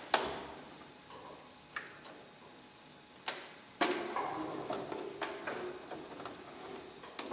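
Domestic sewing machine stitching slowly through thick layers of fabric: separate sharp ticks about every second and a half, then a slow, steadier run of stitching from about four seconds in.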